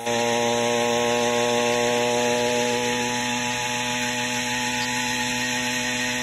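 Small ported and decked engine of a motorized bicycle running as it is ridden, holding a steady pitch.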